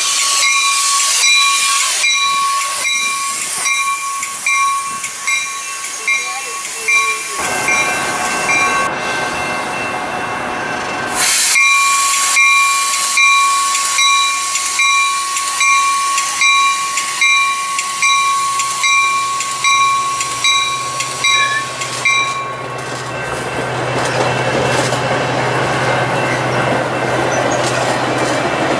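Metra bilevel commuter train pulling out of a station: a bell dings about twice a second over a hiss of air, then stops about two-thirds of the way through. The cars roll past with a low hum and rising wheel-on-rail noise.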